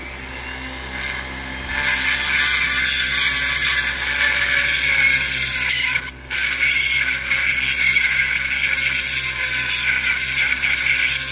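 Handheld die grinder running with a small burr, grinding down a dinged spot on the aluminium deck of a Kawasaki 900 jet-ski cylinder at the edge of the sleeve. It builds up over the first two seconds, drops out briefly about six seconds in, then runs on steadily.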